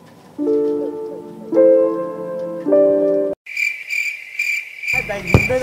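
Three sustained keyboard chords, each struck about a second apart and rising in pitch, then cut off abruptly. A steady, pulsing cricket chirp follows, with the clean break suggesting an added sound effect rather than a recorded insect.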